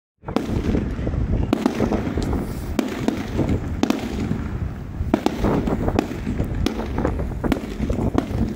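Aerial fireworks bursting overhead: a quick run of sharp bangs and crackles over a continuous low rumble.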